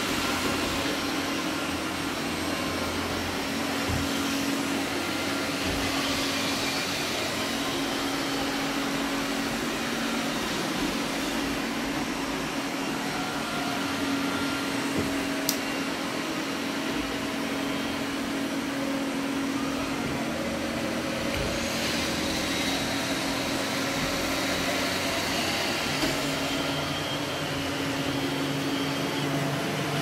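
Robot vacuum cleaners, iRobot Roombas among them, running together: a steady motor hum with a constant low tone beneath and one sharp tick about halfway through.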